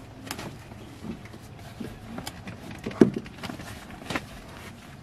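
Scattered knocks and clicks as a leather rear car seat cushion is pressed and tugged by hand, with the loudest thump about three seconds in.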